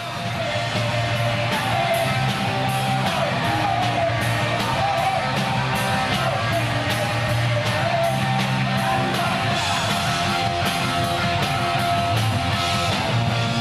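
Loud punk rock: electric guitar and drums with a sung vocal line, playing steadily throughout.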